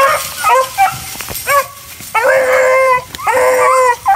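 Beagle hounds baying while running a rabbit: a few short yelping notes, then two long drawn-out bawls.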